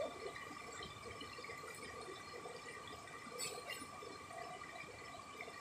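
Faint, steady rush of river water flowing over rocks, with a few faint high ticks about three and a half seconds in.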